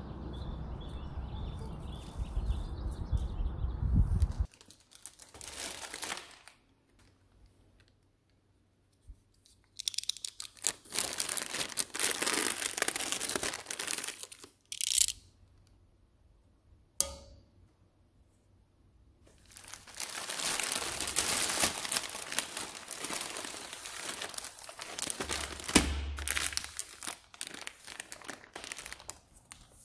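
Plastic packaging crinkling and rustling in bursts as a plastic mailer bag and a shower curtain liner's plastic package are handled and opened, with a single sharp click in one quiet gap. The first few seconds hold a steady outdoor background noise.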